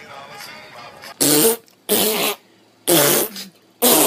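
Four loud, short sneezes, each about half a second long and about a second apart, starting about a second in.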